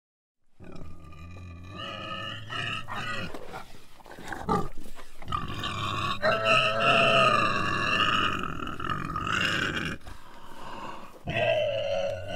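An animal squealing in loud, pitched cries, starting after a moment of silence. Shorter cries come first, then one long held squeal, a brief pause, and another squeal near the end.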